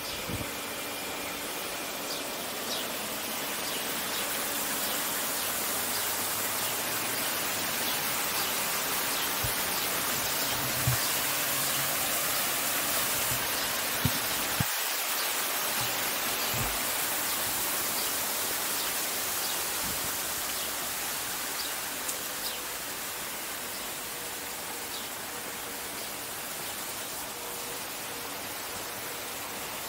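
Water splashing steadily in a garden fountain or water feature, a little louder in the middle stretch and easing off later. A few short knocks are heard around the middle.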